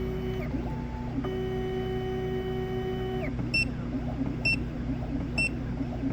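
Black Widow computerized key machine decoding a key: its motors whine at steady pitches that step up and down over a low hum, stopping about three seconds in. Then short high electronic beeps come about once a second.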